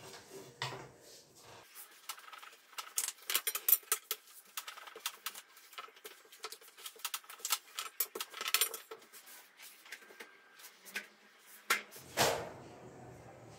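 Long thin rolling pin (oklava) rolling out yufka dough on a plastic-covered marble slab: quick irregular clicks and taps as the pin is rolled and knocked against the table, busiest a few seconds in and again around eight seconds in. A louder rustling thump comes near the end.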